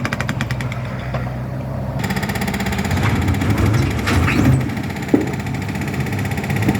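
Jackhammer hammering in rapid strokes, cutting off abruptly about two seconds in. After that, the engine of heavy construction machinery runs steadily, with a few sharp metallic clanks.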